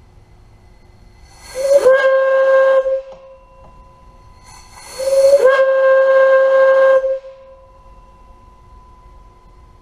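Brass single-chime steam whistle blown on compressed air from a shop air compressor, sounded twice. Each blast opens with a rush of air and settles into one steady tone. The first lasts about a second and a half, the second about two and a half seconds.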